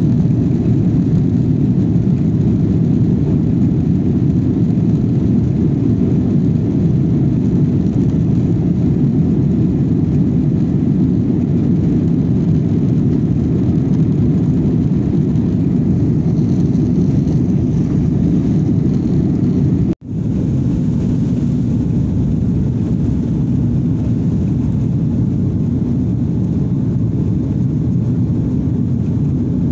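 Jet airliner's engines at takeoff thrust, heard from inside the cabin during the takeoff roll and climb-out: a loud, steady, deep roar. It cuts out for an instant about two-thirds of the way through, then carries on.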